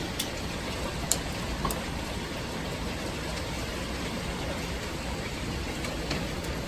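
Steady downpour of rain and hail, with a few sharp hard impacts standing out in the first two seconds, the loudest just over a second in.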